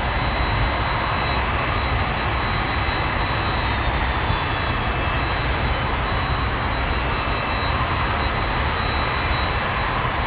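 Boeing 767-300 airliner's twin jet engines running steadily at low power on the ground, a continuous rumble and hiss with a thin high whine.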